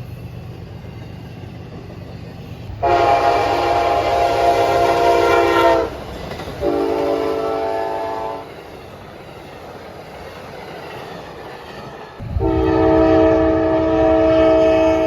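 Freight locomotive air horn sounding three blasts for a crossing as the train approaches. The first lasts about three seconds and the second about two. The third begins about twelve seconds in and is still sounding at the end, over a low rumble from the train.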